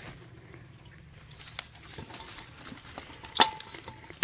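Handling of bell pepper plants: soft rustling with a few sharp snaps and clicks, the loudest about three and a half seconds in and another at the end, as peppers are picked by hand.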